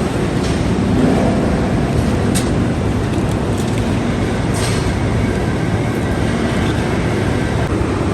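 Steady loud din of steel-mill machinery, with sharp metallic clanks about two and a half and four and a half seconds in.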